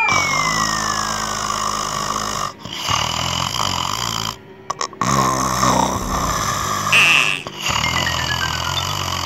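Loud snoring, about four long snores in a row, with a thin whistling tone sliding down in pitch on the first snore and again near the end.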